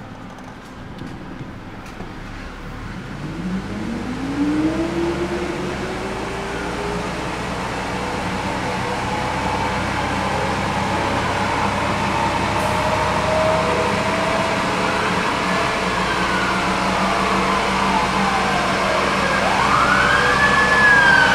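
1994 Toyota Camry four-cylinder engine pulling the car on a chassis dynamometer. A few seconds in its pitch rises as it speeds up, and then it runs steadily, growing louder as road speed climbs. In the last third an ambulance siren wails, its pitch sweeping down and up.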